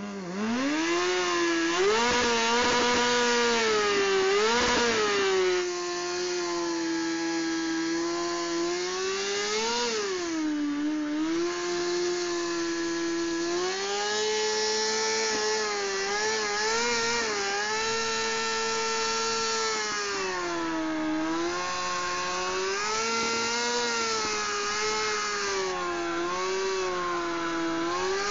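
Kawasaki Ninja 636's inline-four engine held at high revs through a long burnout, its pitch wavering up and down as the throttle is worked while the rear tyre spins in snow. It is a little louder for the first five or six seconds, then settles.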